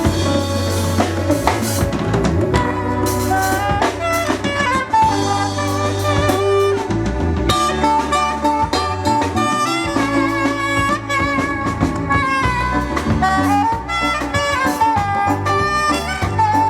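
Live band playing an instrumental passage: a drum kit keeping time under a bass line, with a wind instrument carrying a melody.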